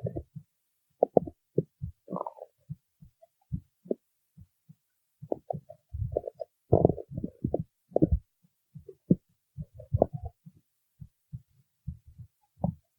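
A person's stomach growling: a string of short, irregular low gurgles, with a louder, higher gurgle about two seconds in and a busy cluster of gurgles between about six and eight seconds.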